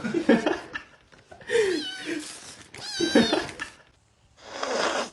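A cat yowling: two drawn-out, wavering calls in the middle, with shorter sounds before them and a brief rushing noise near the end.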